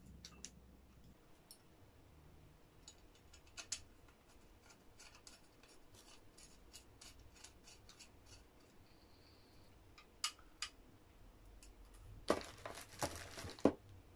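Metal rods and gooseneck arm of an LED ring-light desk stand being handled and screwed together: scattered light clicks and taps, then a run of louder rasping clicks near the end as the parts are joined.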